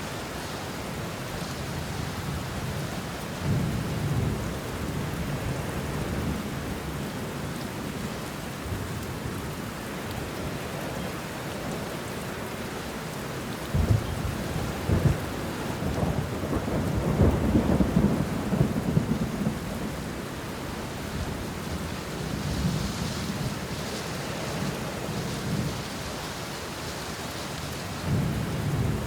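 Steady rain falling on banana leaves and bushes, with thunder rumbling through it: a rumble a few seconds in, and a longer, louder roll with sharp cracks about halfway through.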